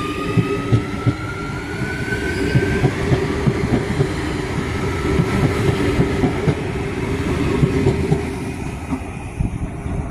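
Adelaide Metro 4000 class electric train pulling away from the platform at close range: its traction motor whine rises in pitch over the first few seconds, then the carriages roll past with a steady clatter of wheels knocking over the rail joints and a low rumble.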